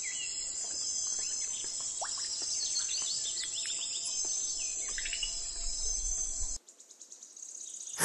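Outdoor nature ambience: a steady, high-pitched trill of insects with birds chirping in short falling notes over it. About six and a half seconds in it cuts off, and a faint rising whoosh follows.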